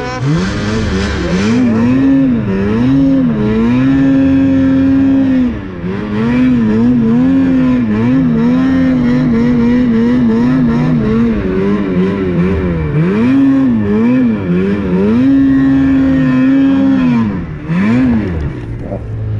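Snowmobile engine revving up and down in quick throttle blips, with longer stretches held at high revs, as the sled is ridden through deep powder snow. The revs drop briefly about five seconds in and fall away near the end.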